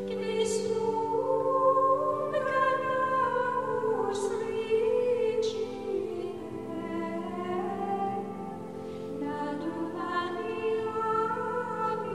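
Slow background music: a classical-style sung line with vibrato, held over sustained chords.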